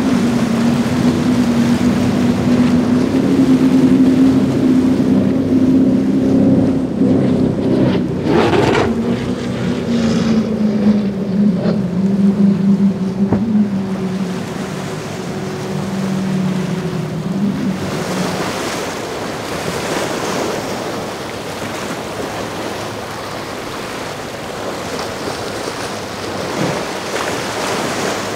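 Motorboat engines running with a steady drone that rises slightly in pitch and then falls away, fading out about two-thirds of the way through. Waves and surf washing remain, with wind on the microphone. A brief sharp rush of noise comes about eight seconds in.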